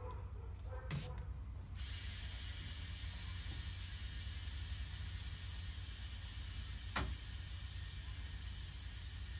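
Compressed air hissing steadily through a digital tire inflator's chuck on a tire valve, starting just after a click about a second in. A second sharp click comes about seven seconds in, over a low steady hum.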